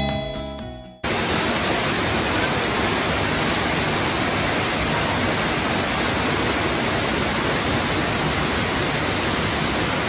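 A short musical chime dies away in the first second, then cuts to the steady, full rush of Ryuka Falls, a waterfall pouring down a rock face into a pool.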